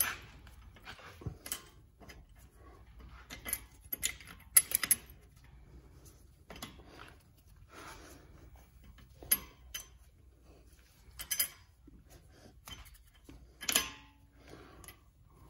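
Brake pad hardware clicking and clinking against a brake caliper as it is handled and fitted: irregular light metallic taps and knocks, a dozen or so scattered through, with a few louder clinks.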